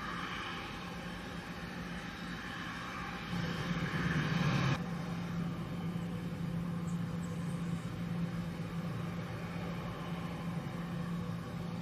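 Twin rear-mounted Rolls-Royce BR710 turbofans of a Bombardier Global 6000 business jet running at taxi power: a steady jet hum with a low drone. It swells briefly, then turns abruptly duller and steadier just under five seconds in.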